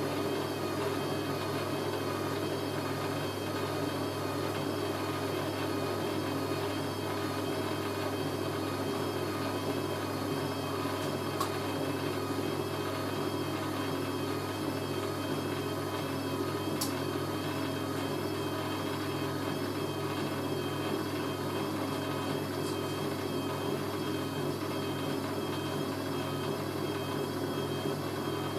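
Hoover A3060 washing machine's drain pump running steadily, a constant hum with a faint whine, as the machine pumps out the dilution rinse water after the main wash. Two brief clicks come about 11 and 17 seconds in.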